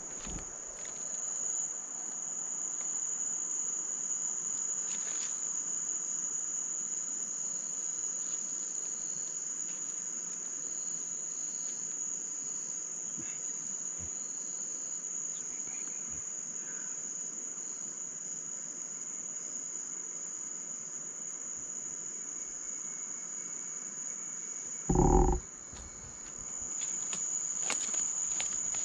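Chorus of night crickets: a steady high-pitched trill, with one brief loud sound about 25 seconds in.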